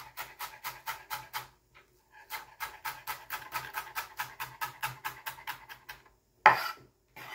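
Chef's knife chopping fresh parsley on a plastic cutting board, rapid even strokes at about five a second, with a brief pause after the first second and a half. The chopping stops about six seconds in, followed by one louder knock and a fainter one near the end.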